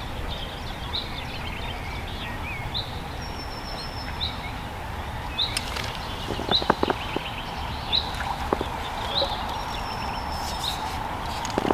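Lakeside birdsong: a bird repeats a short high chirp about once a second, with an occasional longer thin whistle, over a steady low rumble. From about halfway through come a few sharp clicks and knocks.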